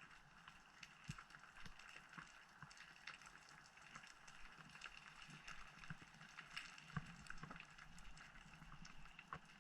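Faint underwater ambience: a low hiss with many scattered small clicks and crackles.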